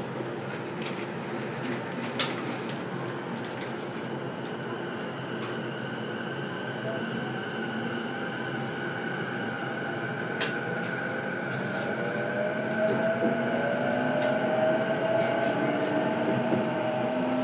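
Interior running sound of a JR East E233-7000 series electric train, recorded in a motor car, pulling away from a station: a steady hum with a couple of sharp clicks. From about seven seconds in, the VVVF inverter and traction motor tones rise slowly in pitch and the sound grows louder as the train accelerates.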